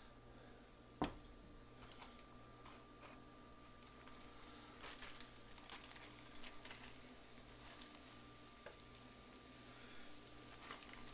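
A stainless frying pan knocks once on a glass-top electric stove about a second in. After that come faint, scattered crackles of butter frying perch roe on low heat, over a steady low hum.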